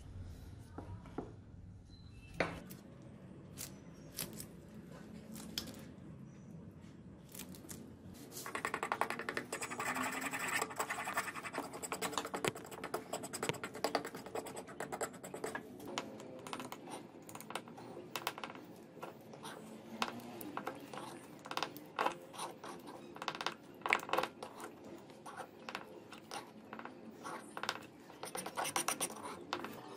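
A small brush scratching and dabbing as clear finish is brushed onto a wooden hammer handle. A few light taps come first, then from about eight seconds in the scratching turns dense and irregular, full of small clicks.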